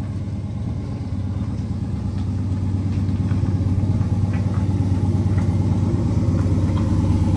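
Vehicle engine running steadily while driving, a low drone that slowly grows a little louder.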